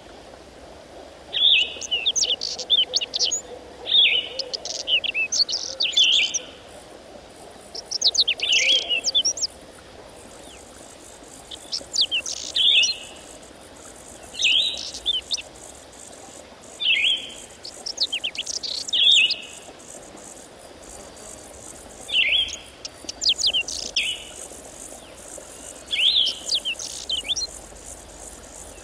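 A songbird singing the same short phrase over and over, about every two seconds: a quick run of high notes sliding downward that ends in a buzzy note.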